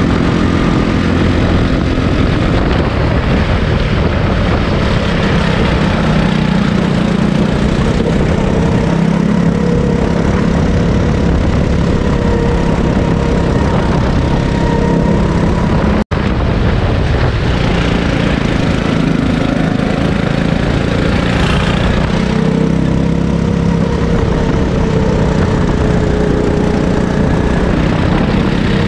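Sodi hire kart's engine running hard on track, its pitch rising and falling with the throttle through the corners. The sound breaks off for an instant about halfway through.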